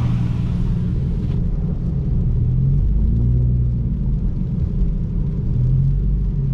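Car engine and road rumble heard from inside the moving car: a steady low hum. A hiss of rushing air fades out about a second and a half in.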